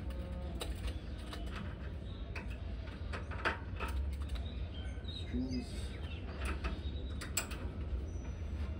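Cable machine creaking and clicking as it works through repetitions, with birds chirping in the background.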